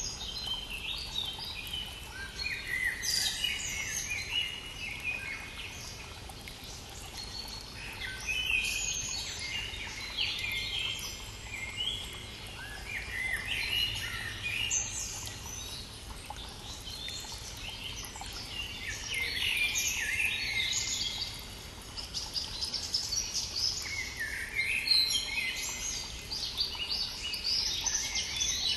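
Several songbirds singing in overlapping chirping phrases, almost without pause, over the steady rush of a brook.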